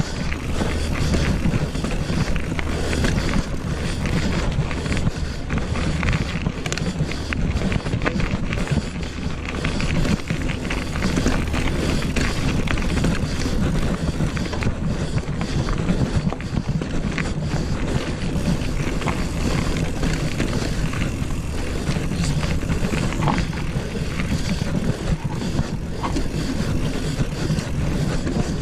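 Wind rushing over the camera microphone of a mountain bike ridden over a rough dirt track, with constant tyre rumble and many small knocks and rattles from the bike bouncing over the ground.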